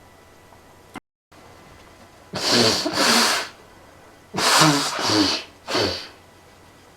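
A man sneezing hard several times in quick succession, set off by pepper snorted up his nose. There are five loud bursts in two clusters, starting a little over two seconds in.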